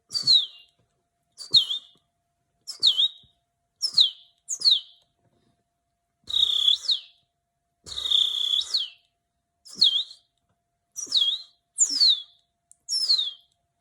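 A man whistling an imitation of a house sparrow's chirping: about nine short chirps, each sliding sharply down in pitch, and two longer, breathier notes midway, with brief pauses between.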